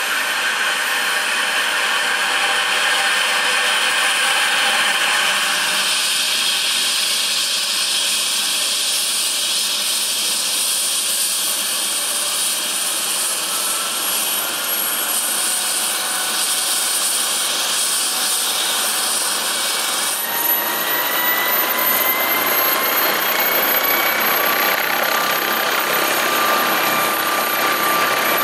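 MD Explorer twin-turboshaft helicopter starting up on the pad: a steady turbine whine and hiss as the main rotor turns. About two-thirds of the way through, a new whine sets in and rises slowly in pitch as the engines spool up.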